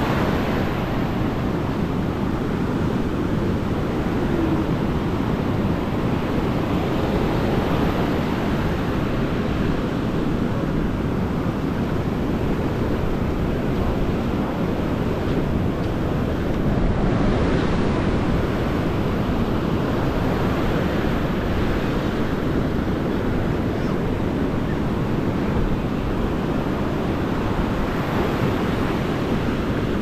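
Ocean surf breaking and washing up a sandy beach in a steady rush, with wind buffeting the microphone.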